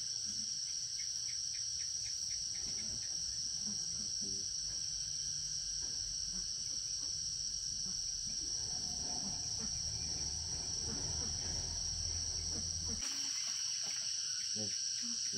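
Steady, high-pitched chorus of insects trilling without pause. Under it a low rumble and scattered faint knocks stop abruptly near the end.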